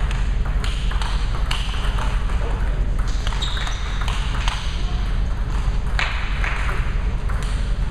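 Table tennis rally: the ball clicks sharply off the bats and the table at an irregular pace, over a steady low hum in a large hall.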